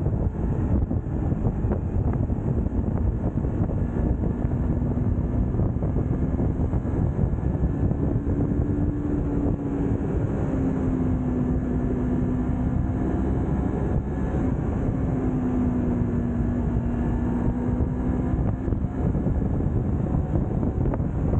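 Yamaha YZF-R3's parallel-twin engine running while riding, with heavy wind rush on the camera's microphone; the engine note holds steady, drifting gently up and down in pitch.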